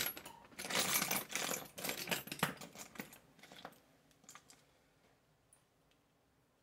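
Small metal hand tools clinking and rattling as they are handled. A dense run of clicks over the first few seconds thins to a few light ticks and dies away.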